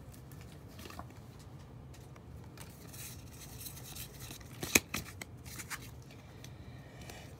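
Faint handling of Pokémon trading-card packs and cards: soft rustling and small clicks, with one sharp click near the middle.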